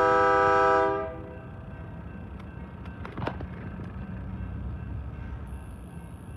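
Union Pacific diesel locomotive's air horn sounding a loud chord that cuts off about a second in. It is followed by the low, steady rumble of the locomotive pulling away, with a few sharp clicks about halfway through.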